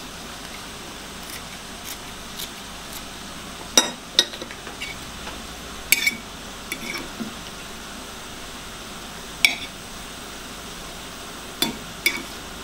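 A metal spoon clinking against a ceramic bowl as steamed fish pieces are stirred: several sharp, ringing clinks at uneven gaps. A few faint snips of kitchen scissors cutting spring onions come in the first three seconds.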